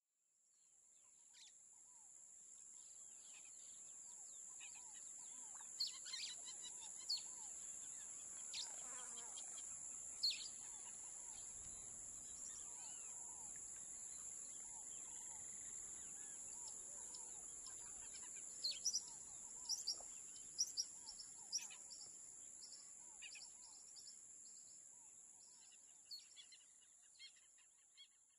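Outdoor nature ambience: birds chirping in short, quick calls over a steady high-pitched insect drone. It fades in over the first few seconds and fades out near the end.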